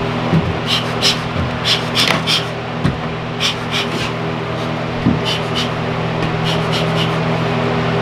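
Bee smoker's bellows being pumped: a quick, irregular series of short puffs of air with a rubbing sound from the bellows, thinning out in the second half. A steady low hum runs underneath.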